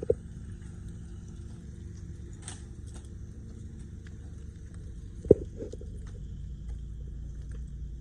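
Steady low rumble with two sharp knocks, one just at the start and a louder one about five seconds in, followed by a few lighter knocks.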